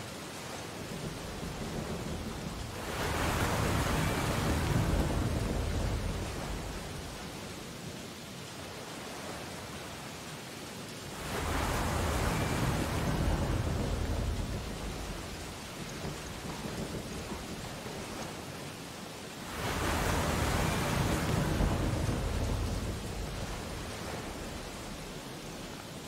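Sea waves breaking on a shore: three surges of surf about eight seconds apart, each coming in suddenly and washing out over several seconds, over a steady wash of water.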